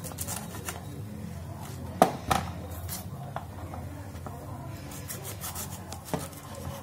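Small knife cutting florets off a head of cauliflower on a plastic tray: scattered crisp cuts and clicks, loudest twice about two seconds in.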